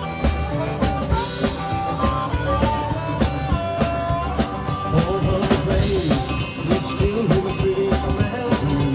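Live blues band playing an instrumental passage: an amplified harmonica, cupped against a handheld microphone, plays the lead with bent, sliding notes over a drum kit and electric guitar.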